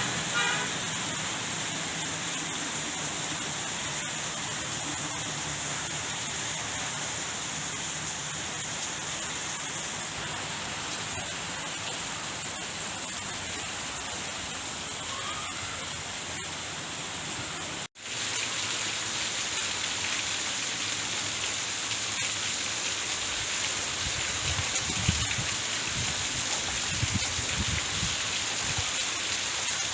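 Steady rain falling on a tent. About two-thirds of the way through, the sound cuts out for an instant and returns louder, and a few low rumbles come near the end.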